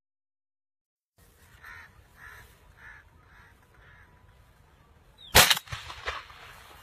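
A bird calls about five times at an even pace, then a single loud shotgun shot is fired at birds in flight about five seconds in, followed by a smaller sharp report.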